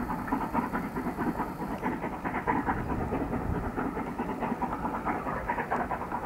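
Distant steam locomotive working a passenger train, its exhaust beats coming as a rapid, even chuffing.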